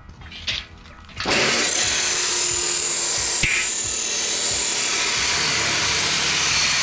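A power tool cutting steel angle bar: a loud, steady, harsh grinding hiss that starts abruptly about a second in.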